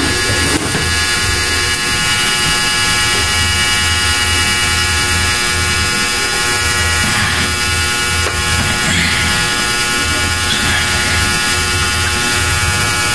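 Steady buzzing drone holding many fixed pitches at once, with a low hum underneath that swells and drops back in an irregular pulse.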